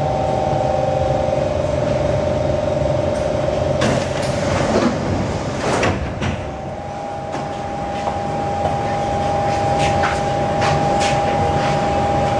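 SMRT C151 metro car standing at a platform: a steady hum of the train's equipment with two steady tones, and the car's sliding doors opening about four to six seconds in. A few short knocks follow.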